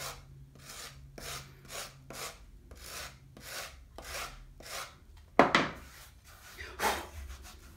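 Surform rasp scraping across the underside of a clay bowl in short, evenly spaced strokes about twice a second, shaving the bottom flat. Two louder strokes come near the end.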